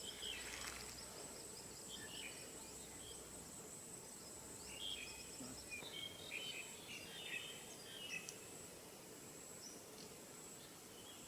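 Faint steady high-pitched insect drone that fades out near the end, with scattered short faint chirps, most of them in the middle stretch.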